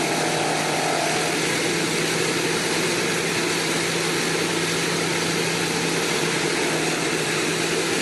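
An engine running steadily, a constant low hum under an even rushing noise.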